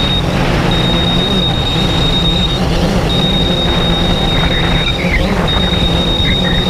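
Quadcopter drone's motors and propellers, heard from its onboard camera: a loud steady buzzing hum with a thin high whine that drops out every second or two.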